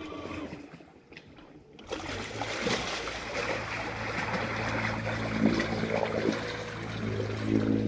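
A boat motor's steady hum with water trickling and splashing. It drops away briefly near the start, then comes back and runs on.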